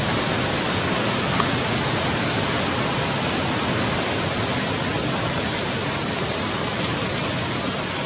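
Steady, loud rushing noise with no distinct calls, starting abruptly at the very beginning, with faint hissy swells in the high range every second or two.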